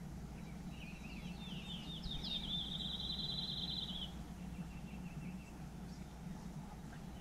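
A songbird singing: a run of quick down-slurred notes leading into a fast, even, high trill that ends about four seconds in, followed by a fainter trill, over a steady low background noise.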